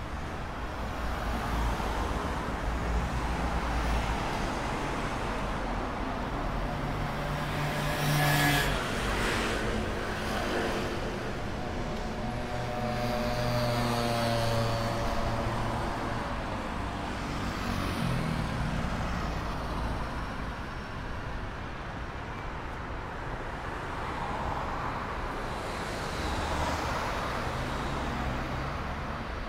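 Road traffic on a city street: a steady hum of passing cars, with a vehicle's engine passing close by about eight seconds in and another one from about twelve to sixteen seconds in.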